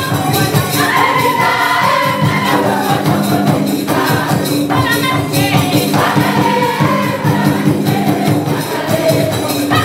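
Group of Taita traditional singers singing together in a choir, with steady rhythmic shaken percussion keeping the beat.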